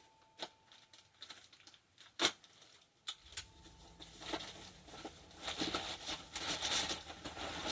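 Packing paper and plastic bags rustling and crinkling as a revolver box is opened and unpacked, with a few sharp knocks of the cardboard box being handled, the loudest about two seconds in. The rustling grows busier in the second half.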